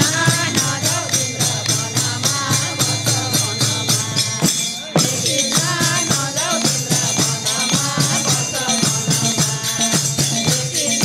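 Nepali devotional bhajan music: a wavering melody over steady, rhythmic jingling percussion like a tambourine, breaking off briefly about five seconds in and starting again.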